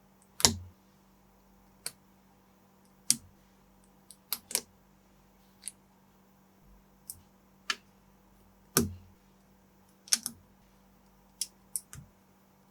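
Plastic LEGO-compatible building bricks clicking as pieces are handled and pressed together: about fifteen short, sharp clicks at irregular intervals, some in quick pairs.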